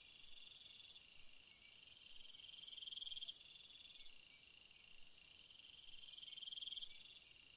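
Faint, steady chorus of crickets trilling at several pitches, swelling and easing every few seconds, with the highest trill dropping back about halfway through.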